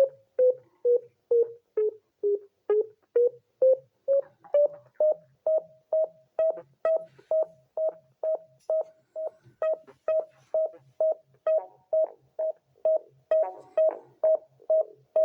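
Synthesizer playing a repeating short beep about twice a second over a quieter low pulsing note. The beep's pitch sags over the first couple of seconds, rises back and then holds steady, and more layers come in near the end.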